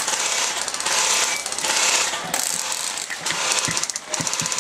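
Airsoft guns firing on full auto: several rapid bursts of fast mechanical rattling, one after another, with a quick even ticking of shots near the end.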